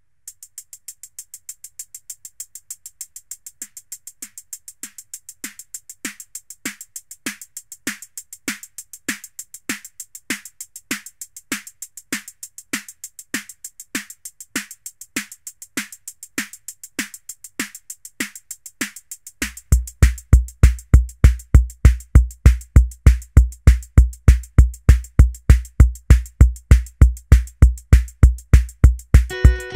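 Background music: a steady electronic drum-machine beat. About two-thirds of the way through, a deep bass kick joins on each beat and the music gets much louder.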